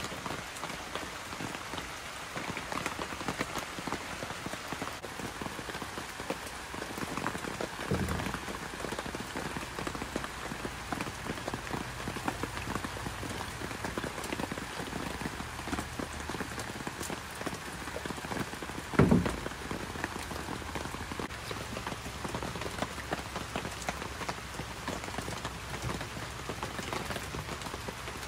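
Steady rain pattering on surfaces. Two dull thumps break through it, about 8 seconds in and again about 19 seconds in; the second is the loudest sound in the stretch.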